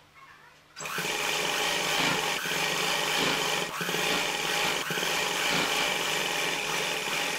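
Sewing machine starting about a second in and running steadily, stitching a strip of cloth along the edge of a fabric piece.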